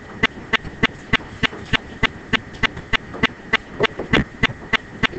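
Sharp, evenly spaced clicks, about three a second, keeping a steady rhythm.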